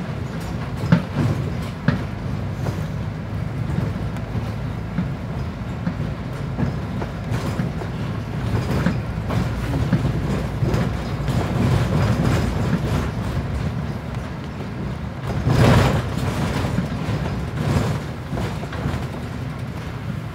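Ride noise inside a Mercedes-Benz Citaro O530G articulated bus under way: a steady low rumble from the running gear and drivetrain, with body rattles and knocks, and one louder rush of noise about fifteen seconds in.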